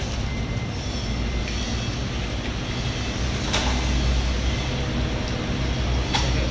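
A steady low mechanical drone, like an idling engine or machinery, with a few sharp clacks: one about halfway through and a couple close together near the end.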